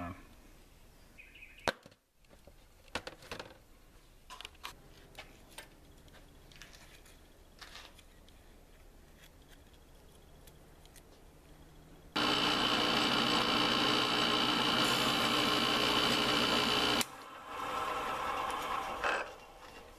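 Scattered small clicks and handling knocks, then the Harbor Freight X2 mini mill's spindle motor running with a steady whining hum that starts suddenly about twelve seconds in and stops about five seconds later, followed by a quieter steady hum.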